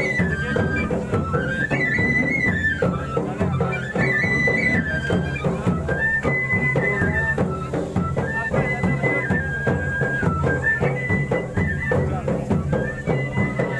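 Kud folk dance music: a high wind-instrument melody moving in steps between a few held notes over steady, repeated drumbeats.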